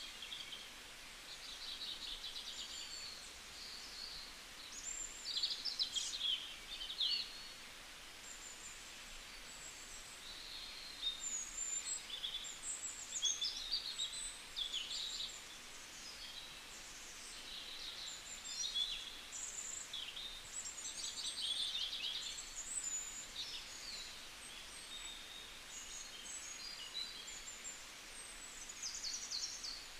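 Small birds chirping and twittering in quick, high phrases over faint steady background noise.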